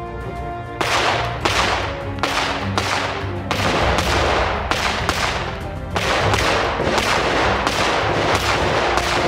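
CZ P10 C pistol fired in a long rapid string, roughly two shots a second, starting about a second in, each shot with a short ringing tail. Background music plays under the shots.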